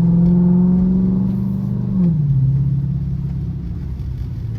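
Chrysler 300C's engine and exhaust pulling under acceleration, the pitch rising slowly, then dropping sharply about two seconds in as the automatic upshifts, after which it runs on steadily at lower revs.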